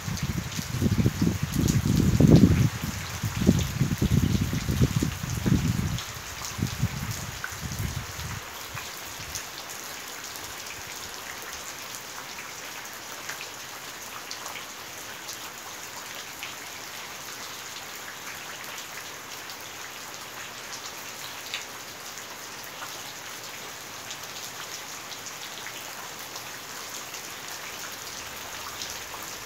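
Steady rain falling on a wet yard and puddles, an even hiss of drops. For the first eight seconds or so, loud, irregular low buffeting on the microphone sits under the rain, then dies away.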